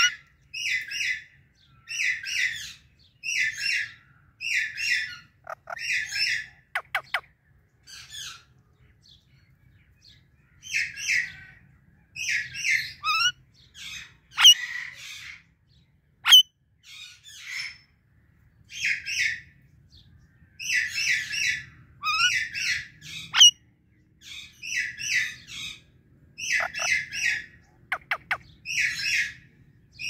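Indian ringneck parakeet giving harsh, repeated screeching calls in quick runs of two or three, with a short pause about a third of the way through. A few very short, sharp squeaks cut in, the loudest about halfway through.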